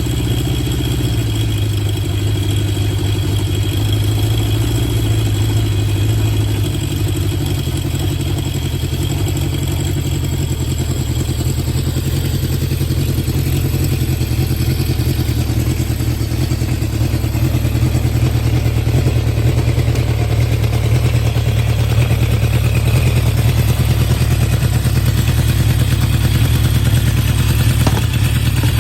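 Honda CB750 Four K3's air-cooled inline four-cylinder engine running steadily through baffle-modified HM341 mufflers, getting a little louder in the second half. The carburettors have just been set up against 'sneezing' (popping back through the carbs): the float level on the #3 carb was found too high and lowered.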